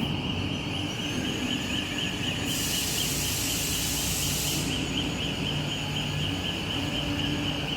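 750-ton multi-direction hydraulic forging press running, with a steady high whine that warbles rapidly over a low hum. A hiss rises for about two seconds in the middle.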